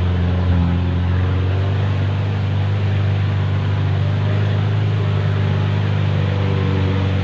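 Pickup truck's engine running steadily at low speed, heard from inside the cab as a constant low hum with road noise.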